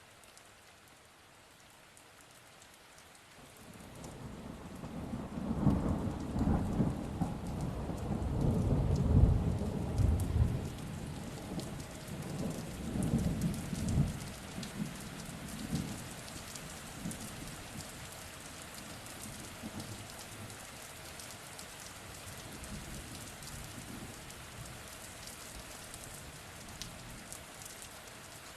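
Rain falling steadily with the patter of individual drops, and a long rolling peal of thunder that swells in from about four seconds in, rumbles in several surges, and dies away a few seconds past the quarter-mark mark of the recording, leaving just the rain.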